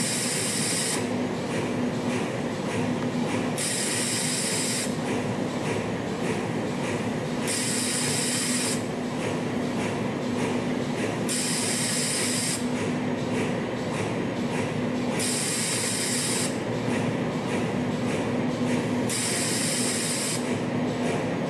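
CNC spring coiling machine running while it coils ultra-fine 0.05 mm medical wire: a steady mechanical hum with a low drone. A high hiss lasting a little over a second comes in about every four seconds.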